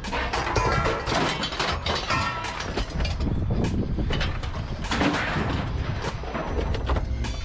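Scrap steel clanking and banging as pieces are thrown and dropped, some strikes ringing briefly, over a steady low rumble of machinery.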